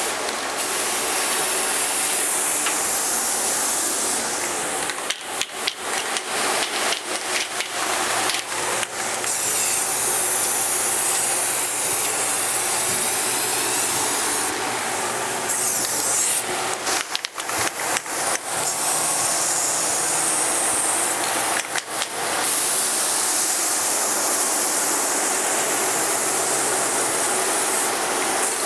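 Aerosol spray paint can hissing in long steady passes, with runs of short stop-start bursts in between, as a light fog coat of paint goes on.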